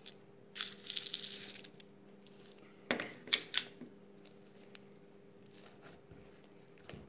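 Dry rice grains poured into slime, a hiss-like rattle for about a second, followed by a few sharp clicks and light handling ticks.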